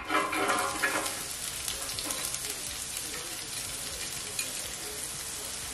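Diced onions dropped into hot groundnut oil, sizzling loudest in the first second as they hit the oil, then settling into a steady frying hiss.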